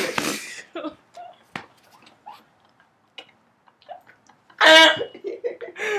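A woman coughing and gagging on a mouthful of dry ground cinnamon. A harsh cough at the start, a few faint clicks and breaths, then a loud gagging cough with her voice in it near the end.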